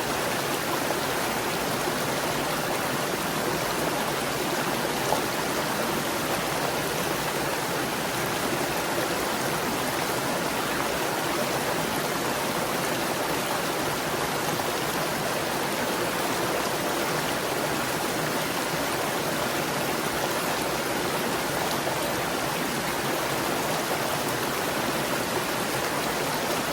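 Stream water gurgling and rushing over rocks in a steady, unbroken flow.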